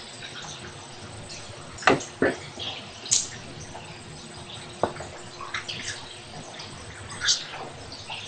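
Water dripping and splashing at irregular intervals inside a tunnel: short, sharp drips, a few louder ones about two and three seconds in, over a steady background hiss.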